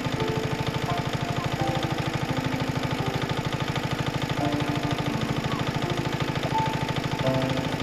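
An engine running steadily with a fast, even knocking pulse.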